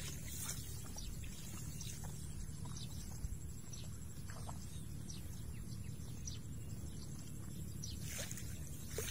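Open-field ambience: a steady low rumble of wind on the microphone, with scattered faint chirps and grass rustles.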